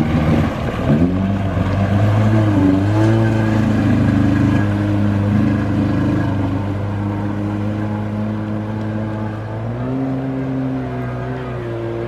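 Jet ski engine running on the water. Its pitch wavers over the first few seconds, then holds steady, then shifts about ten seconds in.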